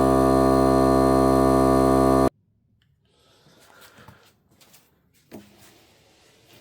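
A loud, steady electrical hum or drone of many held tones cuts off abruptly about two seconds in. It is followed by a faint hush with scattered small clicks and handling noises, one of them sharper about five seconds in.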